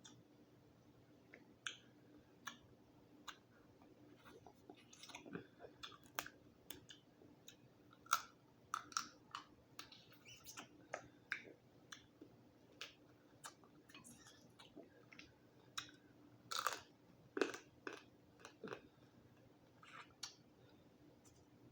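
Close-up chewing and mouth sounds of someone eating boiled Dungeness crab, with many irregular sharp clicks and crackles, denser and louder in the second half.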